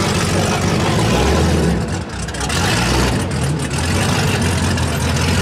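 Loud car engine revving repeatedly, its pitch climbing and falling several times, with a brief drop about two seconds in.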